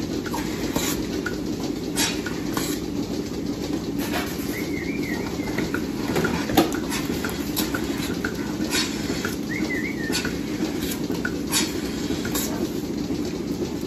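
Milking parlour machinery running with a steady rumble, overlaid with irregular metallic clicks and clanks as milking clusters are handled and attached to cows' udders. A couple of short high chirps sound about a third and two thirds of the way through.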